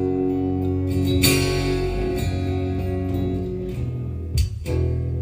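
Acoustic guitar playing an instrumental passage between sung lines: strummed chords ring out, with fresh strums about a second in and again near the end.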